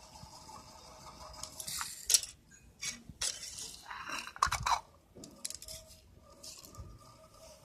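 Small hard plastic and metal parts clattering, clinking and scraping as they are handled, with a few sharp knocks, loudest about two seconds in and again a little past the middle, over a faint steady whine.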